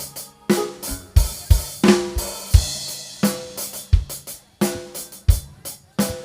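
Drum kit playing on its own in a live band: a drum break of kick drum, snare, hi-hat and cymbals, with the kick landing roughly every 0.7 s.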